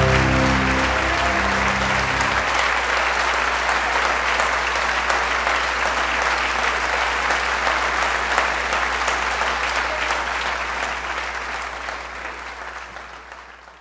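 Audience applauding. A held final chord of music ends about two seconds in, and the clapping carries on steadily before fading out near the end.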